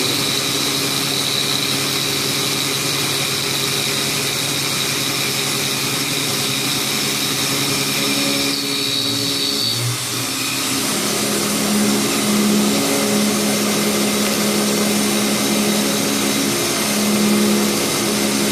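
Prolight CNC milling machine cutting with a 2 mm step-down: a steady machine hum with several held tones, which shift to a different pitch about ten seconds in.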